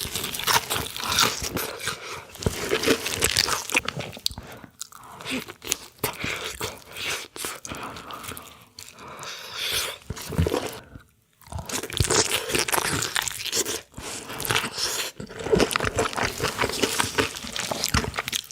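Close-miked crunchy chewing and biting, a dense run of crackling crunches that pauses briefly about eleven seconds in.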